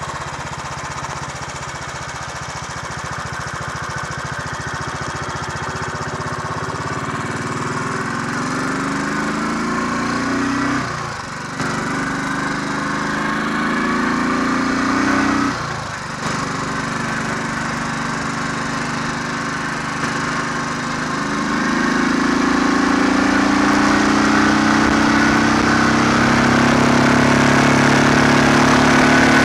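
Royal Enfield 500 Electra X single-cylinder four-stroke engine pulling the bike along under way. The engine note rises, drops briefly at two gear changes a little under halfway through, then climbs again and holds louder and steady.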